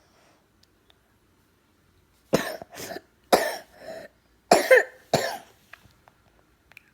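A coughing fit of about six hard coughs, in two quick bouts of three, part of a persistent night-time cough.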